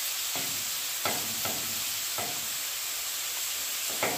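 Diced chicken sizzling on the hot steel plate of a Pit Boss flat-top griddle, with spatulas scraping and turning it in about five short strokes; the loudest comes near the end.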